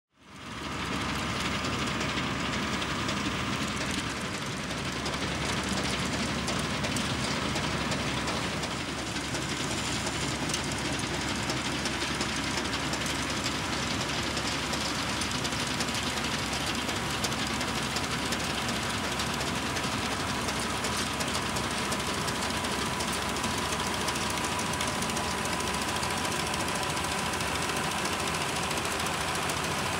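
1963 Claeys combine harvester at work cutting buckwheat, its engine, cutter bar and threshing machinery running together in a steady, noisy clatter, going smoothly. The sound fades in over the first second.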